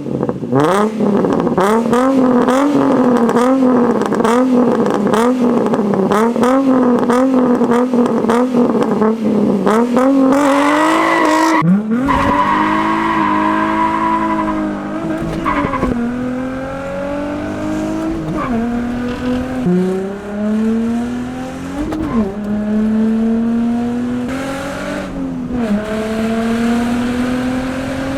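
A 2004 Infiniti G35's VQ35DE V6, loud through a straight-piped exhaust with the muffler deleted, driven hard. For about the first ten seconds the revs rise and fall about once a second under rapid crackles. Then it pulls up through the revs in several rising runs, each cut off sharply by a gear change.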